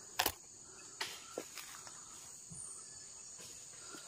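Forest insects buzzing steadily at a high pitch, with a few short crunches and rustles of dry leaf litter being walked on or disturbed, the loudest about a quarter second in.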